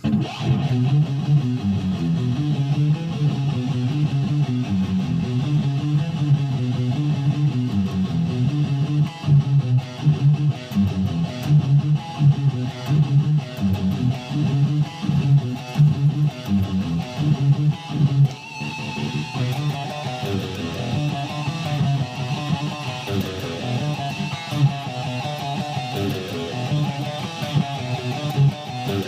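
Instrumental guitar music, strummed and steadily paced. About two-thirds of the way through the playing shifts, and a brighter, higher part comes in.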